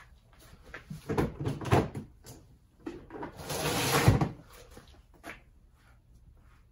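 Shock parts and tools being handled on a workbench: a run of knocks and clicks, then about three seconds in a second-long scraping rustle that ends in a sharp knock.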